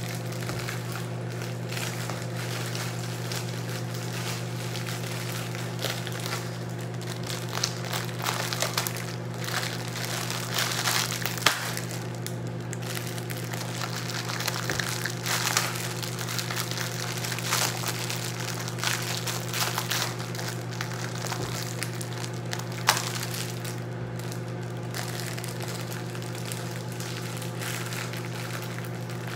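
Plastic instant-noodle packet crinkling in irregular bursts as it is squeezed, twisted and pulled at to tear it open, over a steady low hum.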